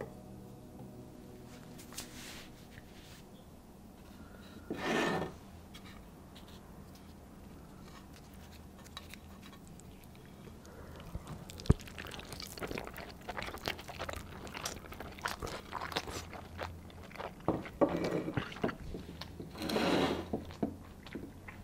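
Corn tortilla tacos being picked up and handled on a clay plate: crackling, rustling and scraping. Sparse at first with one louder short burst, then a dense run of small clicks and crackles with a few louder bursts near the end.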